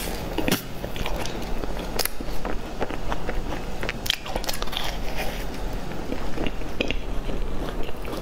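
A person biting and chewing crumb-topped cream puffs, close to the microphone: soft crunches and small crackling clicks scattered throughout, over a steady low hum.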